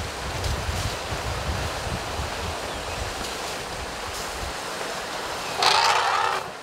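Wind buffeting the microphone over a steady outdoor hiss, with the low rumble dropping away about four and a half seconds in. Near the end, a louder, harsh sound lasts about a second and then cuts off.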